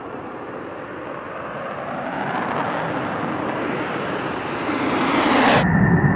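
An F-35A Lightning II's afterburning turbofan running at full thrust for takeoff, its noise growing louder and brighter as the jet rolls and climbs away. About five and a half seconds in it cuts suddenly to a louder, lower jet rumble with a steady high whine.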